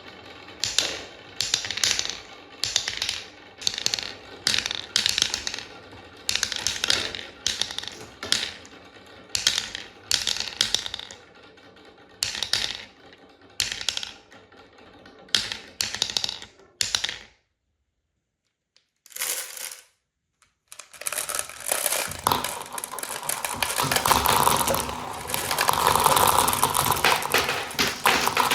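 Marbles clattering down a wooden Quadrilla marble run. At first they come in short clacking bursts about once a second. After a few seconds of silence they pour through as one continuous dense clatter of many marbles at once.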